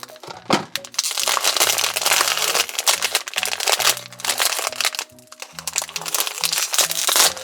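Background music with a bouncy bass line, over loud crinkling and crackling of plastic packaging being torn and pulled open to get at a small plush toy, pausing briefly about two-thirds of the way through.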